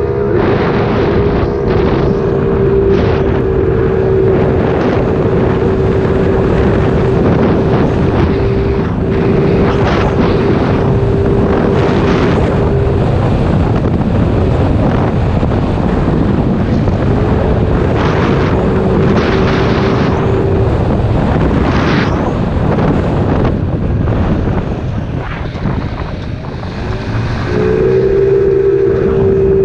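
Kymco Agility 50 scooter with a freshly fitted 72cc big-bore kit being run in, its engine holding a steady high-pitched drone while riding, under heavy wind noise on the microphone. The engine note drops away about halfway through, returns briefly, then comes back strong near the end after a short dip in loudness.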